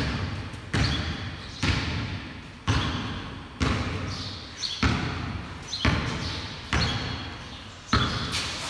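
A basketball being dribbled on a concrete floor, bouncing about once a second, with each bounce echoing around a large hard-walled garage.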